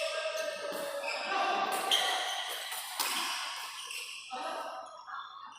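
Badminton rackets striking the shuttlecock in a fast rally: three sharp hits about a second apart, fewer near the end, with voices in the hall behind.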